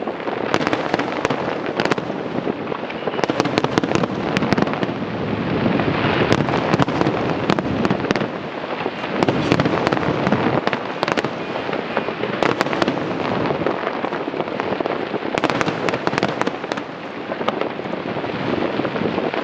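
A dense, continuous barrage of aerial fireworks: bursts blend into a steady rumble, with many sharp cracks and crackles throughout.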